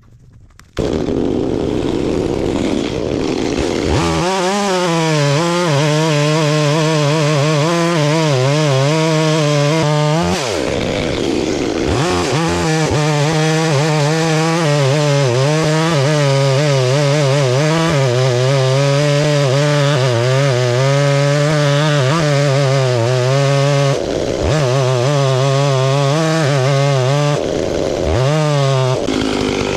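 Stihl chainsaw starting up loud about a second in, then running at full throttle cutting along a log's grain to peel off stringy wood shavings. The engine note sags briefly under load about ten seconds in and twice near the end.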